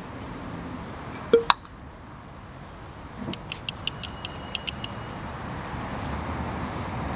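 Small glass vials and their caps being handled and clinking: two sharp clicks about a second in, then a quick run of about nine light clinks a couple of seconds later, over a steady low outdoor background noise.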